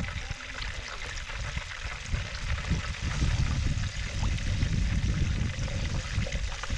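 Tilapia frying in a hot pan: a steady sizzle of hot oil, with an uneven low rumble underneath.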